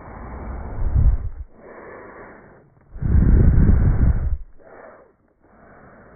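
A goat right up against the microphone: two loud, deep, noisy bursts of close contact, each about a second and a half long, with quieter rustling between them.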